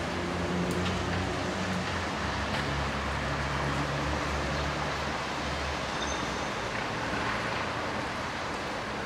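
Urban street ambience in the rain: a steady hiss of rain and wet-road traffic, with a low vehicle rumble that fades out about six seconds in.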